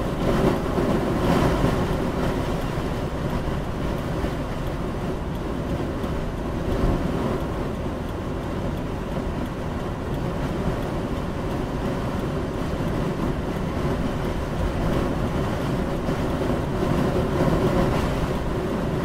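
Wind noise rushing in through a slightly cracked-open car window at highway speed, over steady road and tyre noise, heard inside the cabin of a 2014 Subaru Crosstrek driving through a high-wind snowstorm.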